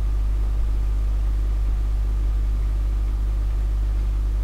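Steady low electrical hum with a faint higher buzz above it, unchanging, with no speech over it.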